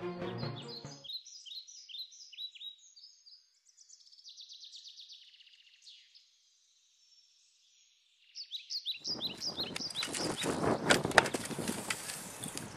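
Birds chirping in quick, high, falling notes, with a short silent gap in the middle. From about two-thirds of the way in, the chirping returns over a rising outdoor rustling noise.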